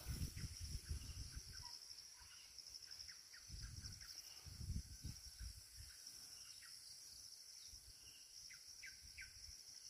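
Faint, steady, high-pitched insect drone with scattered short bird chirps, a few clearer ones near the end. Soft low rumbles come and go, mostly around the middle.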